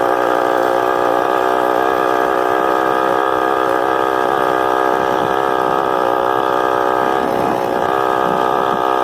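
Honda CG 125's single-cylinder engine running steadily under way, holding an even pitch with a slight waver.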